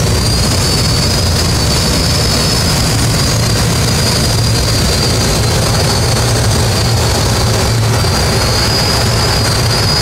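Steady rush of air over a glider's cockpit during the climb on tow, with a low engine drone from the tow plane and a thin, steady high whistle of air.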